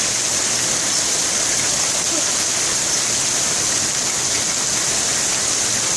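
Heavy downpour of rain mixed with hail, a steady dense hiss with no let-up.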